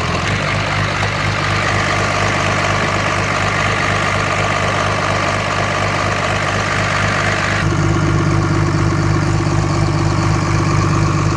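Portable air compressor running steadily while inflating the pickup's tires, with the truck's engine idling underneath. About seven and a half seconds in, the sound changes: the higher hiss drops away and the low hum grows stronger.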